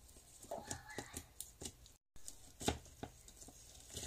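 Faint sticky crackles and clicks of slime being poked and squeezed by gloved fingers in a plastic cup, with one sharper pop a little past halfway.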